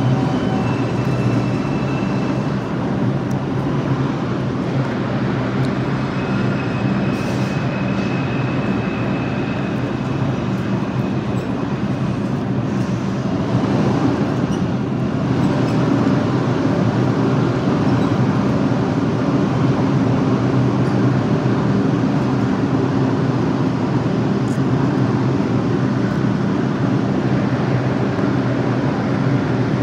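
New York City subway train at the station platform, running with a steady low drone and a faint high whine now and then. It grows a little louder about halfway through.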